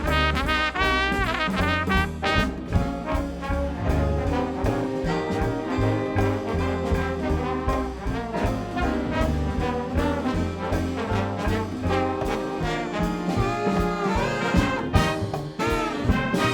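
Full big band playing swing jazz with no vocals. Trumpets and trombones carry the ensemble lines over a steady bass and drum beat.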